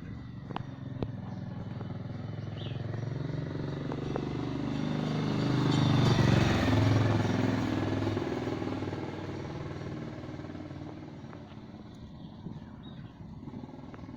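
A motor vehicle's engine running: it grows louder to a peak about six to seven seconds in and then fades, as when a vehicle passes by. A few sharp clicks come in the first four seconds.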